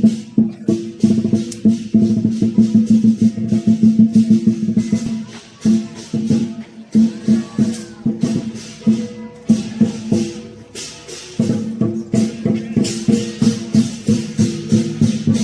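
Lion dance percussion: a drum, clashing cymbals and a gong played together in a fast, driving beat of several strokes a second, with the gong's ringing tone sustained underneath. The beat drops off briefly twice, about five and a half and about eleven seconds in, then resumes.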